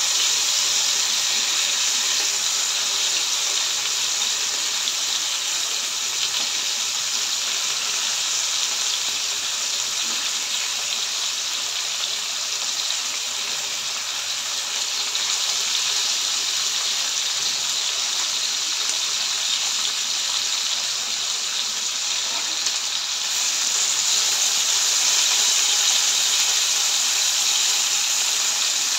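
Fish steaks sizzling in hot oil in a frying pan: a steady, dense hiss that grows a little louder and brighter about 23 seconds in.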